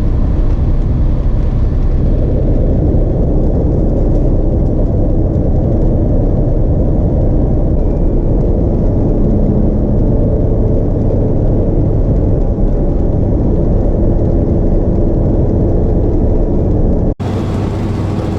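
Cab noise of a 2007 Peterbilt 379 semi truck driving on the freeway: a steady engine drone with road noise. It cuts off abruptly about seventeen seconds in, giving way to a slightly quieter sound.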